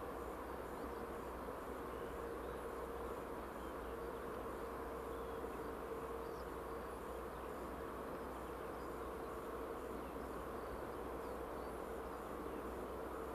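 Steady drone of an Airbus A319-100 heard from inside the aircraft: an even rush of noise with a constant mid-pitched hum and a low rumble, unchanging throughout.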